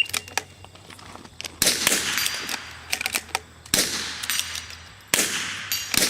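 Rifle shots at a steel dueling tree, the loudest about one and a half, three and a half and five seconds in, with quieter shots between them. Steel paddles ring after hits.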